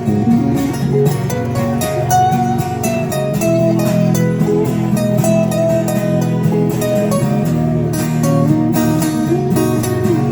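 Instrumental guitar break in a live song: guitar strumming chords with a melody line moving over it, no singing.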